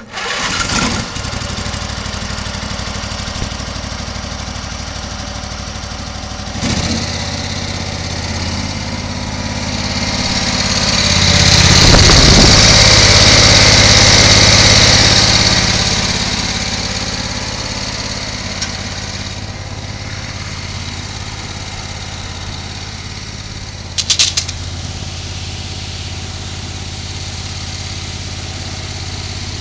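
Small gasoline engine on a brush truck's fire-pump skid unit starting and then running steadily to drive the pump. About ten seconds in it grows much louder with a strong hiss for several seconds, then settles back to a steady run. There are a few sharp knocks late on.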